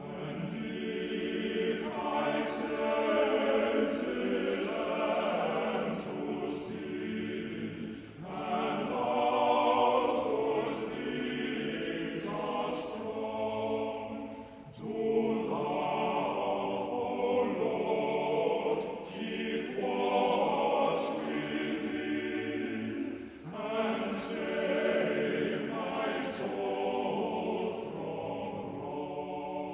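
A choir singing slowly, in long held phrases of several seconds each, with a fresh phrase starting about every seven or eight seconds.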